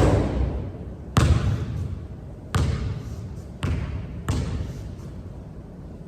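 Basketball bouncing hard on the court while being dribbled: five loud bounces at uneven intervals, each followed by a short ringing decay.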